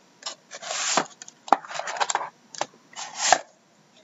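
Cardboard trading-card box being handled and opened: a series of short rustling and scraping noises with a few sharp clicks.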